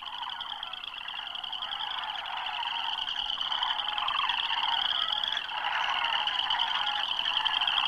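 A dense chorus of many small calling animals: a rapid, high trilling over a lower busy babble, fading in and growing steadily louder.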